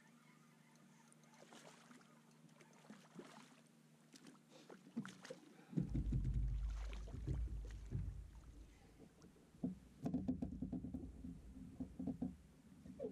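A hooked channel catfish being reeled to the side of a boat, thrashing and splashing at the surface, with low rumbling and knocks from about six seconds in and again near the end as it is lifted out.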